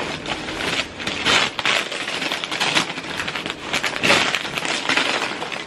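Crinkling and crackling of paper or plastic packaging being handled and opened, with many small irregular crackles.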